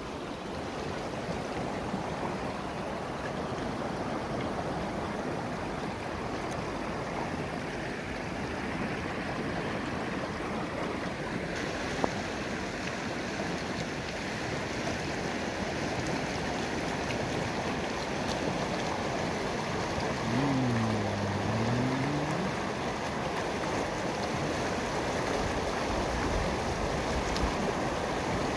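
A stream in spate, swollen with overflow from ponds, rushes over rocks in a steady wash of water. About twenty seconds in, a low sound dips and then rises in pitch for about two seconds.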